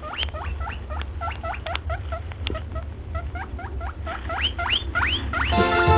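Rabbit squeaking: a quick series of short rising squeaks, about three a second, over a low background rumble. Children's music comes back in near the end.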